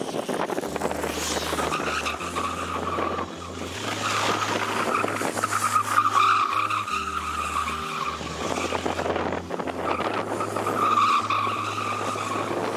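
Go-kart tyres squealing on asphalt as the kart skids and drifts, in three long squeals of a couple of seconds each.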